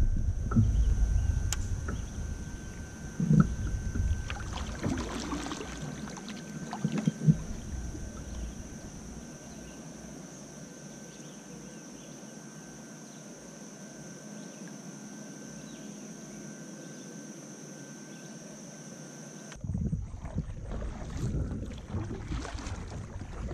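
Kayak being paddled on calm water: splashing and dripping from the paddle blades, with two sharp knocks in the first several seconds. There is a quieter, steady stretch in the middle before the splashing picks up again near the end.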